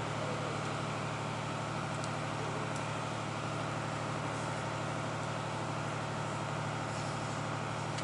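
Steady low droning hum of heavy machinery running, even and unchanging.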